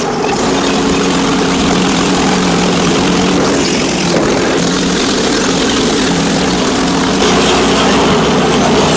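An engine running steadily with a loud hiss, its pitch wavering a little, starting suddenly at the start.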